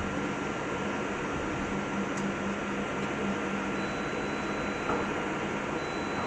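Presswood pallet production machinery running steadily, a constant mechanical hum with a thin high tone over it and a couple of faint ticks.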